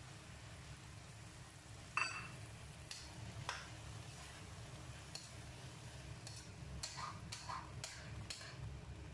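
A metal spatula scrapes and clinks against a wok while stirring shredded potatoes and bell pepper. There is one loud ringing clink about two seconds in, then a run of shorter scrapes and taps in the second half, over a low steady hum.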